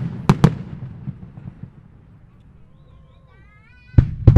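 Fireworks shells bursting: two sharp bangs near the start, their rumble dying away into a short lull that holds a faint wavering whistle, then a new rapid run of bangs near the end.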